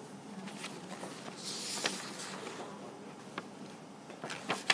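Quiet room tone broken by a few faint clicks and a soft rustle, with a sharper click just before the end.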